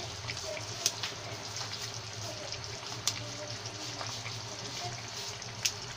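Kofta curry gravy simmering in a pan, a steady bubbling hiss, with a low steady hum under it and three short sharp clicks spread through.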